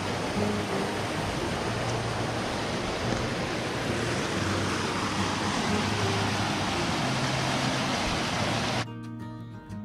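Steady loud rushing noise with soft background music under it; about nine seconds in the rushing cuts off abruptly, leaving the music alone.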